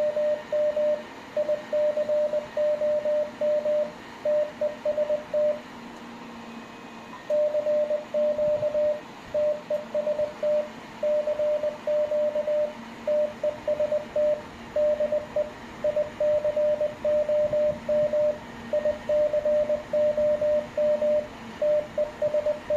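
Morse code sidetone from an Icom IC-7300 transceiver: a single high tone keyed on and off in dots and dashes, with a short pause about a quarter of the way through, over a faint steady hum. Each key-down is a CW carrier driving the amplifier board to about 800 W PEP.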